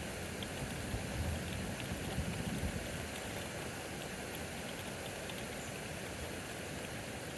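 Steady rain pouring during a severe thunderstorm, with a few sharp ticks of drops striking. A low rumble swells about one to three seconds in.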